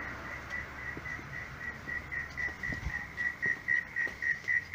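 Rapid high-pitched chirping at one steady pitch, about five chirps a second, growing louder.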